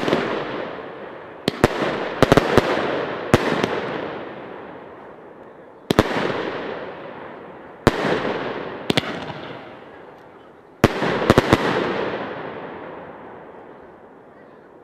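Aerial firework shells bursting: about a dozen sharp bangs, some in quick clusters of two or three, each trailing off in a long echo. The last cluster comes about eleven seconds in, and its echo fades away near the end.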